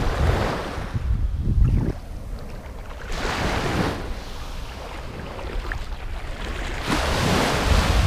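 Small waves washing up onto a sandy beach in three swells of hiss, with wind buffeting the microphone in a low rumble underneath.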